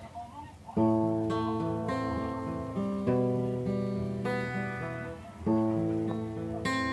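Acoustic guitar strumming slow chords, a new chord about every two seconds, each left to ring out.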